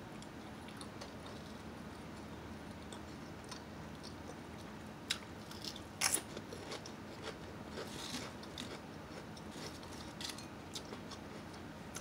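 Lay's potato chips crunching as they are bitten and chewed, with a scatter of sharp crunches from about five seconds in.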